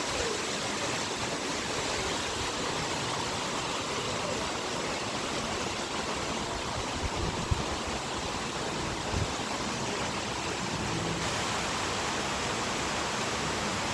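Steady rain falling, an even hiss, with two brief low thuds a little past halfway.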